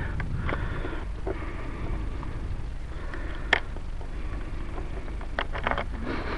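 Wind rumbling on the microphone, with a few light clicks and knocks: a sharp one about three and a half seconds in and a quick cluster near the end.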